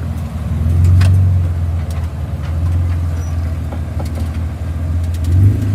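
Dubbed-in truck engine sound effect laid over an RC crawler: a low, steady engine rumble that rises a little near the end, with a few light clicks.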